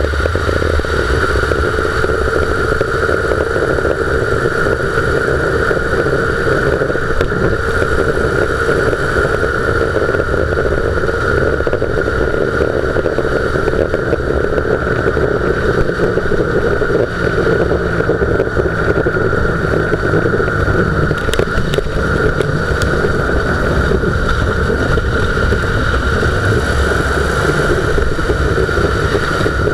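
Dodge Durango front wheel bearing growling with tyre and road rumble, heard up close from the front suspension while driving at steady speed. It is a constant drone with a steady hum, the sign of a worn front hub bearing.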